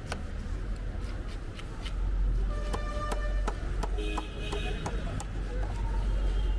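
Outdoor street ambience: a steady low traffic rumble that grows louder about two seconds in. Brief steady tones sound about three seconds in and again near four seconds, among scattered sharp clicks.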